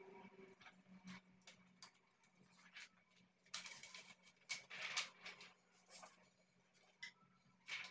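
Faint rustling of a plastic laminating film pouch being handled and pulled open, in a few short bursts, the loudest about four to five seconds in.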